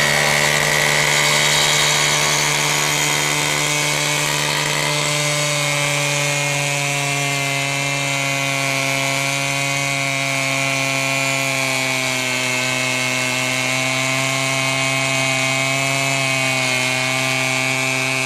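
Two-stroke petrol abrasive rail cut-off saw running steadily at high revs under load, its disc grinding through a steel rail with a bright hissing whine. It is cutting out a defective rail weld.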